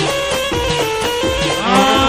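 Middle Eastern folk-style music playing: a steady drum beat of about three hits a second under a sustained melody. About a second and a half in, a new held melodic line with a wavering vibrato slides in.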